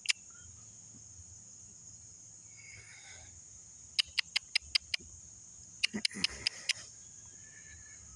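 Steady high-pitched insect chorus in the woods, broken twice by short runs of rapid sharp clicks, about five a second.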